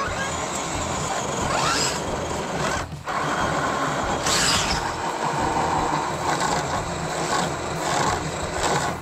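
Electric radio-controlled rock crawlers, a Redcat Gen8 among them, driving through dry grass and dirt, their motors and gearboxes running steadily. The sound drops out briefly about three seconds in.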